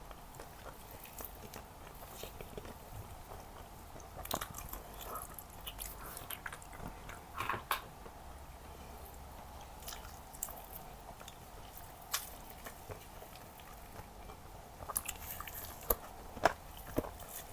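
Close-miked ASMR eating sounds of someone chewing Jordanian mansaf, lamb and rice in yogurt sauce. Irregular mouth clicks and smacks come in clusters, a few seconds in and again near the end.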